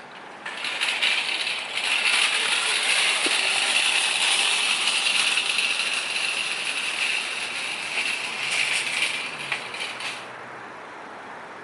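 Metal shopping cart rattling as it is pushed over pavement. It starts about half a second in and stops suddenly about ten seconds in.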